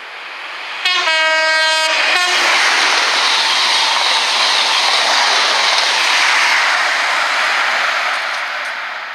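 Train sounding its horn once, for a little over a second, as it approaches, then passing at speed with a loud rushing noise that fades near the end.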